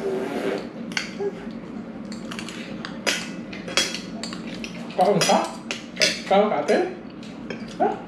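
Spoons and forks clinking and scraping against plates during a meal, in many small irregular clicks. A few short voice sounds cut in about five and six seconds in, and again near the end.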